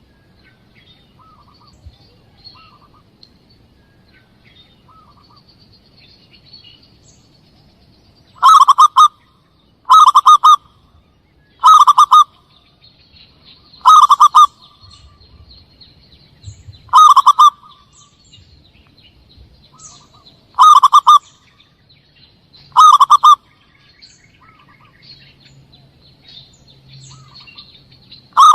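Zebra dove (perkutut) cooing as a hunting lure call: about eight seconds in, seven loud calls begin, repeated a few seconds apart. Before them there are only faint, short bird chirps.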